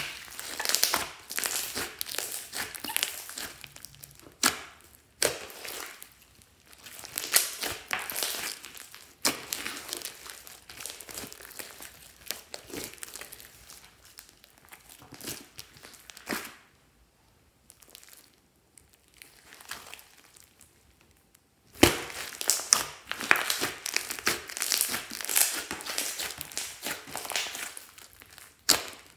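Glossy slime with small foam beads being stretched, folded and pressed by hand: sticky crackling and popping in runs. There is a quieter spell midway, then a loud run of crackles over the last seven seconds or so.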